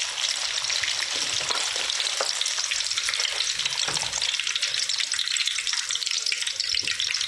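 Hot oil crackling and sizzling as strips of tofu deep-fry in a metal wok, with a metal ladle stirring them and scraping against the pan.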